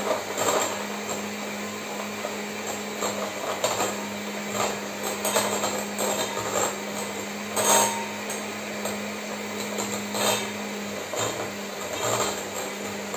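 Bosch electric hand mixer running steadily, its motor humming while the beaters beat mashed banana and cream and clatter against the glass bowl, with a sharper knock a little past halfway.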